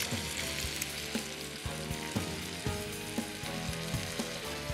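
Pork sausage patties and fried eggs sizzling steadily in a hot cast iron skillet, with a few soft knocks as a spoon moves the patties in the pan.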